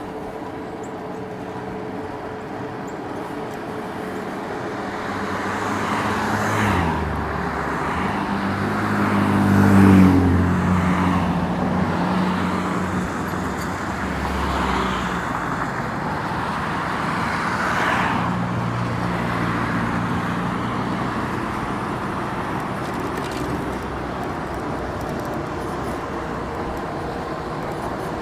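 Road traffic: motor vehicles passing one after another over a steady road hum. The loudest pass comes about a third of the way in, where an engine's hum rises in pitch as it speeds up, with smaller passes after it.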